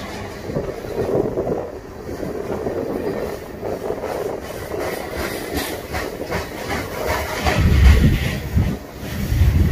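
Freight cars of a long Kansas City Southern manifest train rolling past, steel wheels clicking over the rail joints. A deep rumble swells about eight seconds in and again just before the end.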